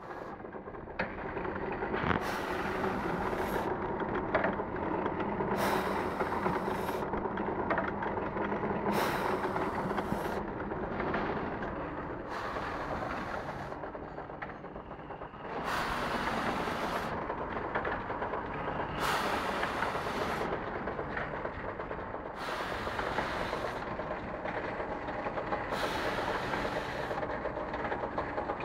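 Muller Martini DS 240 three-knife book trimmer running: a steady mechanical clatter and hum, with a hiss that comes back about every three seconds.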